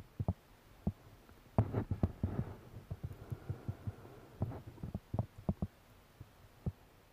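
Irregular low thumps and clicks of rod, reel and boat handling noise as a bent rod is worked against a fish or snag, busiest about two seconds in.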